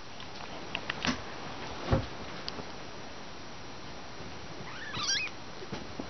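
A young Persian kitten gives one short, high-pitched mew with a wavering pitch about five seconds in. Before it come a few small clicks and a soft thump about two seconds in.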